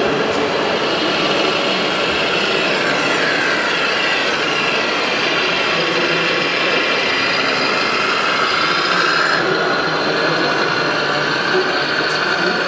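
Small electric motors and gear drives of radio-controlled model vehicles whining, several pitches gliding slowly up and down as the models change speed, over steady background noise.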